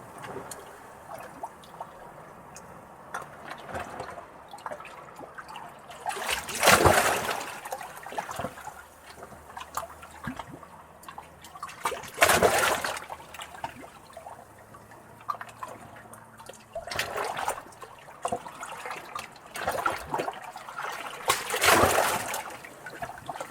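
Small, calm sea waves lapping against rocks, close up: a low steady trickling and gurgling of water among the rocks, broken every few seconds by a louder wave that splashes in and drains away, about five times.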